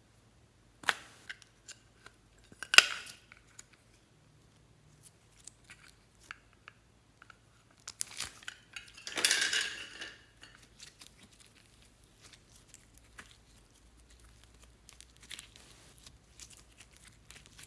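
Sharp plastic clicks as a lollipop-shaped plastic toy container is handled and opened, then a wet squelching stretch about nine seconds in as slime is squeezed out of it. After that, faint sticky crackling as a sheet of slime is pulled and stretched.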